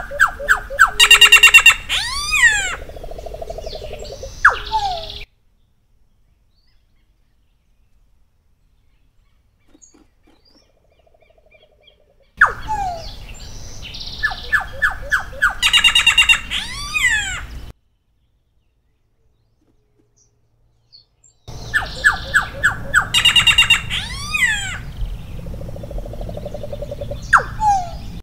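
Solitary black cacique singing in three bouts of about five seconds each, with silent gaps between them. Each bout mixes fast runs of harsh, clicking notes with quick downward-slurred whistles.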